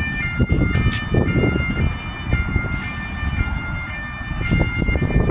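Electronic tones stepping between a few pitches in a repeating pattern, over an irregular low rumble.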